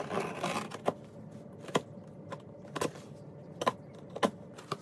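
Scissors cutting open the packing tape on a cardboard shipping box. A rasping scrape comes first, then a string of sharp clicks and taps as the blades work along the tape and knock against the cardboard.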